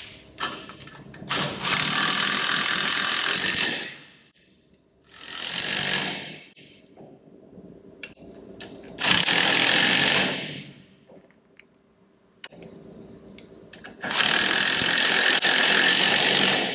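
A power wrench running in four bursts, each one to a few seconds long, tightening the nuts that hold the axle and brake backing plate to a Ford 9-inch rear axle housing.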